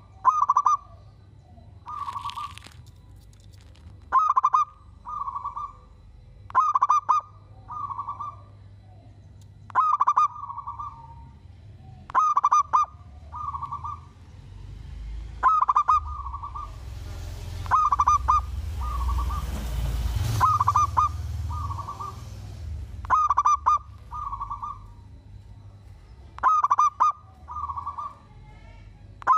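Zebra dove (perkutut) cooing: short phrases of quick notes repeated every two to three seconds, often a phrase followed closely by a shorter one. In the middle there is a stretch of rustling noise with a low rumble.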